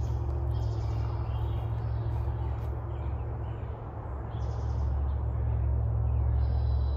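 Several short bird calls and trills, coming and going, over a steady low rumble.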